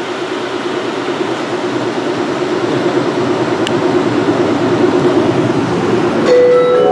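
Atlanta airport Plane Train, a rubber-tyred automated people mover, pulling into the station from the tunnel, its steady rumble growing louder. Near the end a chime of steady tones sounds.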